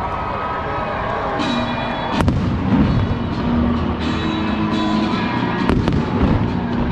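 Aerial fireworks going off over steady music. Two sharp bangs stand out, a little over two seconds in and again about three and a half seconds later.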